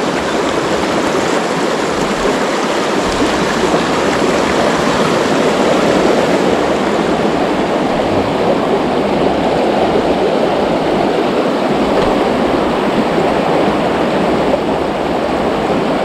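A shallow, rocky river rushing over stones in riffles and small rapids: a steady, loud rush of water.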